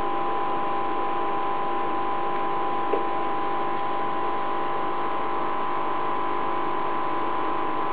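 Steady electrical hum over a hiss, holding a few fixed tones without change, with a faint tick about three seconds in.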